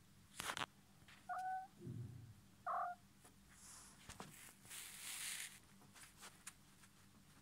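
Kittens mewing: two short high mews, one about a second in and one near three seconds, with soft rustling and scuffling as they clamber over their mother cat.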